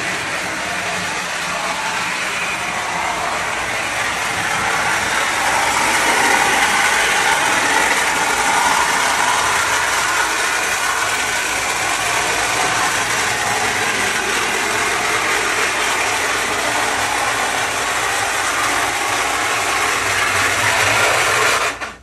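Lionel No. 51 Navy Yard switcher running along three-rail toy train track with its motor and gears making a loud, steady noise, a sign the locomotive badly needs lubrication. It grows louder a few seconds in and cuts off suddenly near the end as the train stops.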